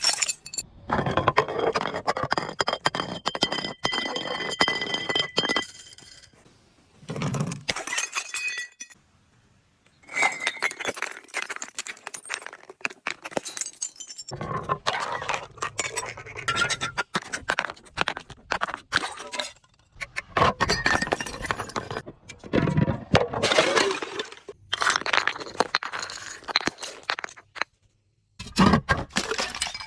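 Glass bottles being crushed and breaking, with crunching and clinking of shards. This comes in about six separate bursts split by short pauses, and the first burst has a high glassy ring.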